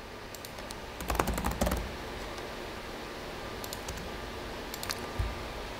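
Laptop keyboard typing: a quick run of keystrokes about a second in, then a few scattered key clicks later on, with a soft low thump near the end.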